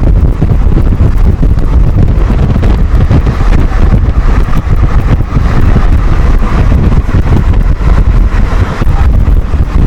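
Heavy wind buffeting the microphone over the rumble of an express train running at speed.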